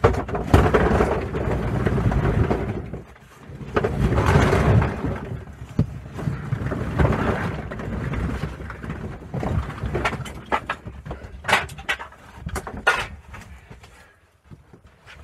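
Handling noise: long stretches of rustling and rumbling, then a quick run of sharp clicks and knocks about ten seconds in.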